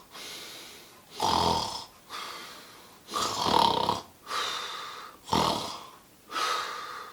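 A person snoring loudly: a rasping snore on each in-breath, about every two seconds, with a softer breath out between snores.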